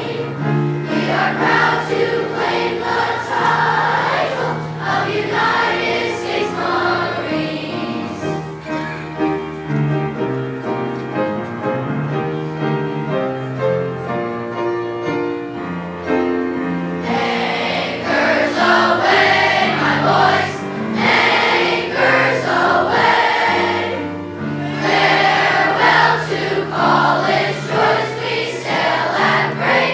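Children's choir singing a military service song with instrumental accompaniment; the voices drop out for a stretch in the middle while the accompaniment plays on alone, then the choir comes back in.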